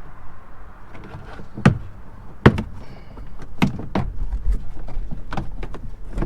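Clicks and knocks of car interior trim panels being pried and pulled loose, with two louder knocks about two seconds in and then a quick run of lighter clicks.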